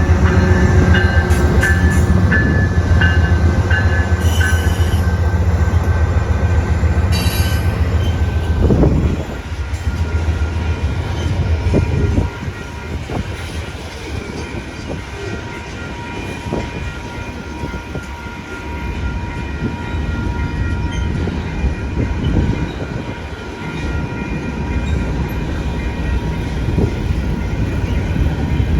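Freight train passing: the diesel locomotive's engine is loud for the first nine seconds or so, then the railcars roll by with clicking wheels and a thin, steady wheel squeal.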